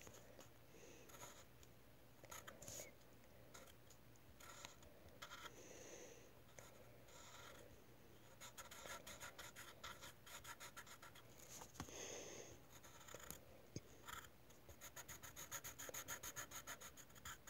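Faint pencil scratching on paper as the eyes of a drawing are shaded in, with runs of rapid back-and-forth strokes about halfway through and again near the end.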